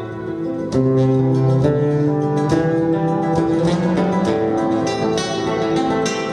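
Solo acoustic guitar played fingerstyle in a flamenco-tinged improvisation: held melody notes over ringing bass strings, with a strong plucked chord about a second in, after which the playing stays louder.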